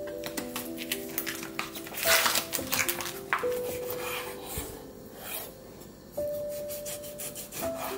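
Kitchen knife slicing raw beef on an end-grain wooden cutting board: short taps and scrapes of the blade, with a denser burst of handling noise about two seconds in. Background music with held notes plays throughout.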